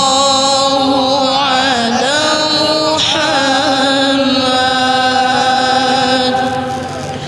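A solo voice singing an Arabic devotional song (sholawat) in long held notes that bend and waver in pitch.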